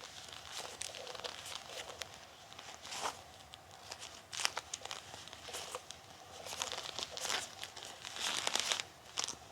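Bilpearl rubber gloves rubbed against each other and sticking and peeling apart, giving irregular short crinkling, rasping strokes that come thicker and louder in the last few seconds.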